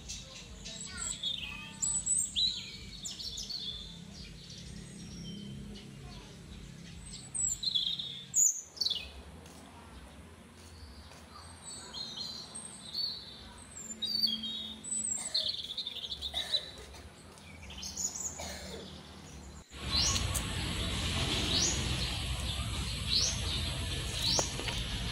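Several birds chirping and calling. Near the end, one bird repeats a short rising note about once a second over a steady background hiss.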